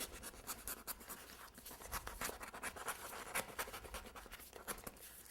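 X-Acto craft knife cutting through a cardboard cake board, a rapid, irregular series of short scratchy strokes.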